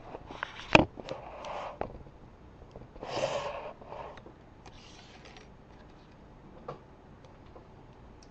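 Handling noise from small tools and bobby pins being picked up: a few sharp clicks in the first second and another near the end, with several short hissy rustles between them.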